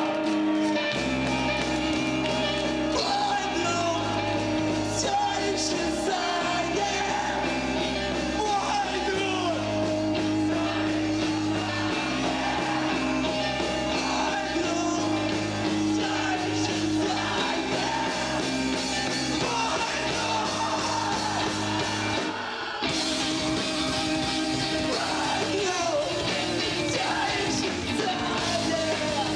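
Emo rock band playing live with a singer, with held guitar chords over a moving bass line. The music drops out briefly about three-quarters of the way through, then comes back in.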